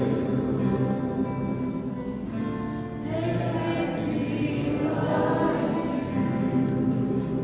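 A congregation singing a hymn together in held, sustained notes.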